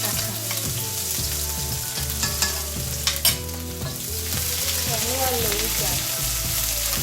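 Food sizzling in hot oil in a pan while it is stirred, with a couple of sharp clicks of the utensil against the pan about two and three seconds in.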